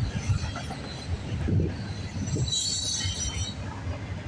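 CN intermodal freight train passing close by, its container cars rumbling steadily over the rails. A high wheel squeal rises over the rumble for about a second, a little past the halfway point.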